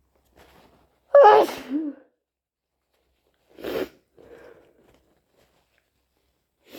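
A person with a cold sneezing loudly once, about a second in, the sneeze voiced and wet. Two shorter breathy bursts follow, one near the middle and one at the end.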